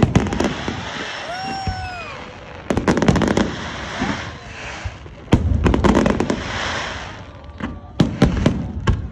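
Aerial fireworks shells bursting in quick volleys of bangs and crackles, about four volleys a couple of seconds apart, with a rumbling haze of echo between them.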